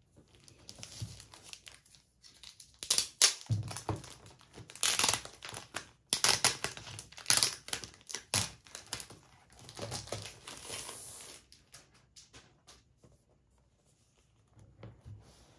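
Clear plastic wrapping crinkling and rustling in irregular bursts as it is worked loose and slid off a flat boxed set, with a soft knock about three and a half seconds in.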